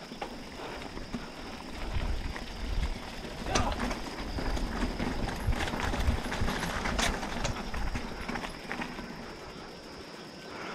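Mountain bike rattling and clattering over a rough trail, with sharp knocks about three and a half and seven seconds in and a low wind rumble on the microphone. It eases off over the last few seconds.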